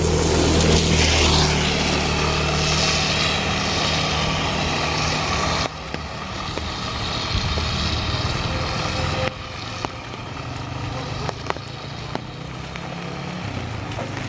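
Steady rain hiss with a motor vehicle's engine running close by. The sound drops abruptly twice, about six and about nine seconds in.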